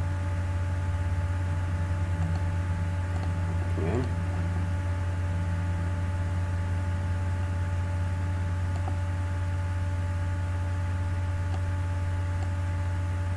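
Steady low electrical hum with a few faint steady higher tones and a light hiss, and a brief faint sound about four seconds in.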